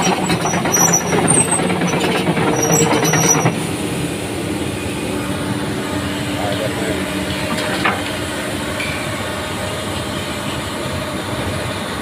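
Komatsu PC200-8 excavator's six-cylinder diesel engine idling with a steady hum, louder for the first few seconds and then settling a little lower, with a single short knock about eight seconds in.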